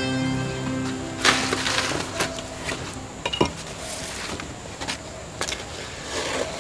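Wood fire crackling in a clay hearth, with scattered sharp pops and snaps. A banana leaf rustles as it is held over the flames near the end.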